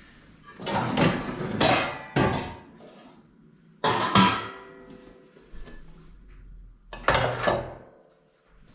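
Pan and kitchen utensils clattering in several short bursts as cookware is handled: a cluster in the first couple of seconds, one around the middle and one near the end.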